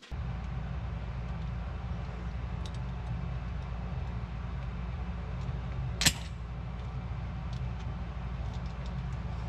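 Steady low rumble with faint metallic ticks of a nut driver and wrench working the terminal nuts in an electric motor's wiring box, and one sharp metal click about six seconds in.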